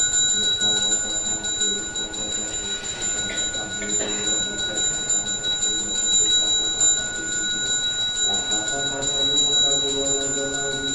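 A ritual hand bell rung continuously, giving a steady, shimmering ring at one fixed pitch.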